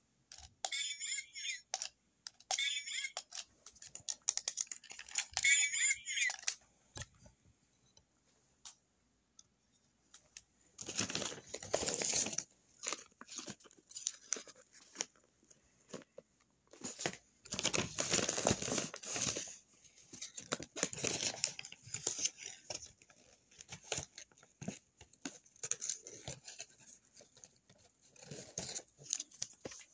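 Paper crinkling and rustling in bursts as a handmade paper blind bag and folded paper packets are handled, with a string of short scratchy sounds in the first several seconds.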